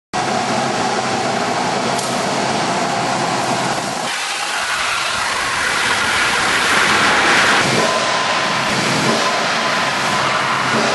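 Wood chipper running with a loud, steady mechanical noise that swells and brightens for a couple of seconds past the middle.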